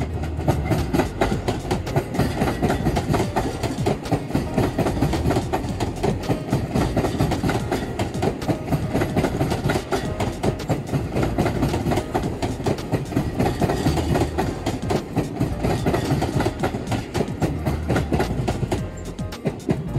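Seibu 001 series Laview electric train passing close by, its wheels clattering over the rail joints in a rapid, continuous clickety-clack over a low rumble. The noise eases off near the end as the last cars go by.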